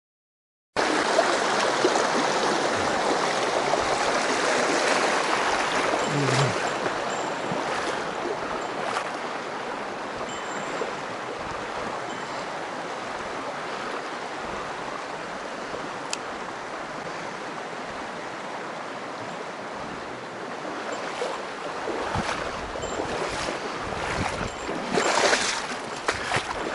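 Rushing water of a mountain stream, a steady even noise that starts suddenly about a second in. A few louder bumps and rustles come near the end.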